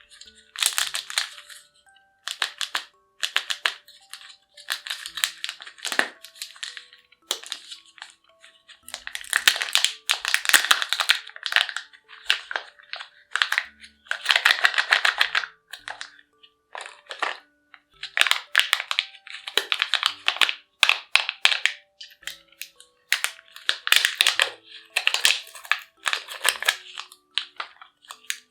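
Candy and Kinder surprise egg wrappers crinkling and crackling as they are unwrapped, in bursts of a second or two with short pauses between. Faint music plays underneath.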